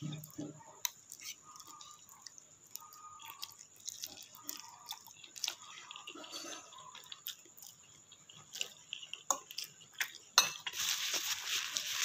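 A person eating a mouthful of instant noodles: wet chewing with small mouth clicks and smacks. About ten and a half seconds in there is a sharp click, then a louder, denser stretch of noise.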